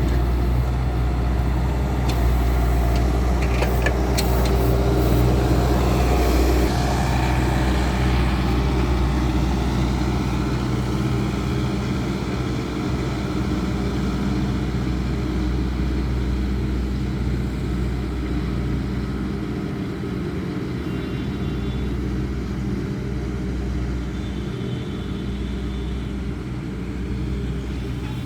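Bobcat S650 skid-steer loader's diesel engine running steadily while working. It is louder for the first several seconds, with a few short knocks about three to four seconds in, then settles to an even hum.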